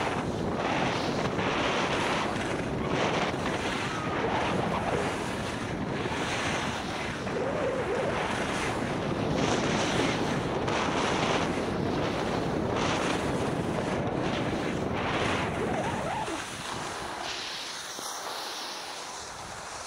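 Wind rushing over a helmet-mounted camera's microphone while skiing downhill, with the skis hissing and scraping over packed snow, swelling and easing with each turn. It dies down about sixteen seconds in as the skier slows.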